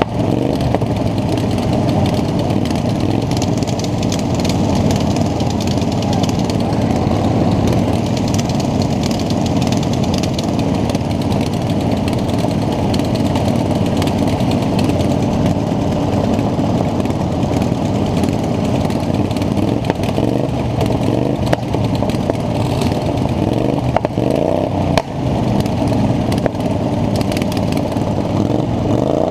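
Small lawn mower engines running hard and steady, with a few sharp knocks in the second half and some revving near the end.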